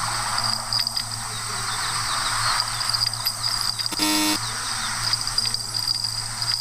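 A short horn-like toot, about half a second long, about four seconds in, over steady outdoor background noise with a high, even hiss.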